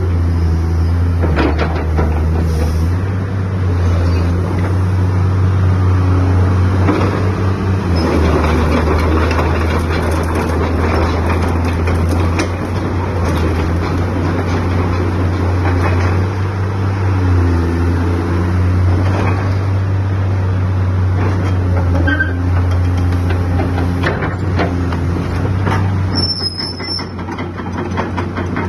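Caterpillar 320C excavator's diesel engine running, its low hum shifting in pitch several times as the load changes, with scattered short knocks.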